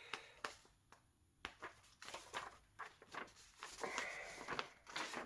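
Faint handling noise: a paper instruction sheet being unfolded and leafed through, with scattered light taps and clicks, and a longer rustle about four seconds in.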